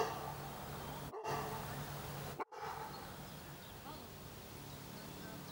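Quiet outdoor background with a steady low hum and a faint short call about a second in; the sound cuts out briefly twice.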